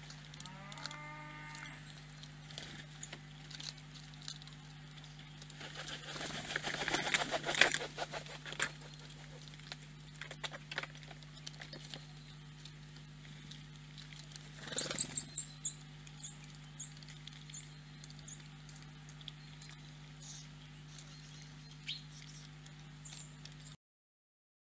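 Wood pigeon's wings flapping sharply as it lands on a log about halfway through, the loudest sound, followed by a series of short, high chirps. Earlier, a red squirrel's rustling and scratching as it forages on the log, over a steady low hum; the sound cuts off just before the end.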